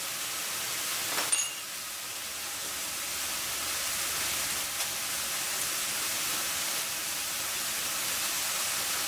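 Ground beef sizzling steadily in a stainless steel frying pan, a continuous even hiss. A short clink about a second in.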